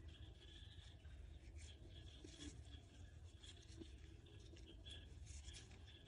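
Faint, irregular scratching and rubbing of a metal crochet hook drawing yarn through stitches, over a low background hum.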